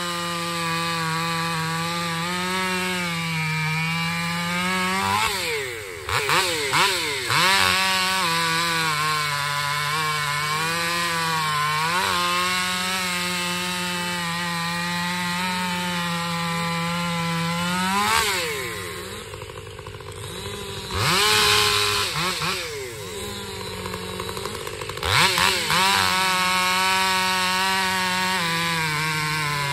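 Stihl 500i fuel-injected two-stroke chainsaw with a Westcoast Saws Barkbox aftermarket muffler cutting through a log near full throttle, its pitch sagging and recovering as the chain loads in the cut. The throttle comes off about six seconds in with a few quick blips before it digs back in, and again around eighteen seconds, where the engine drops toward idle and is revved a couple of times before it cuts again.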